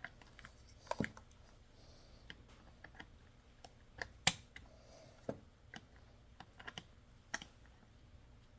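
Scattered light clicks and knocks of a chainsaw's plastic cover and small parts being handled and fitted, about half a dozen, the sharpest about four seconds in.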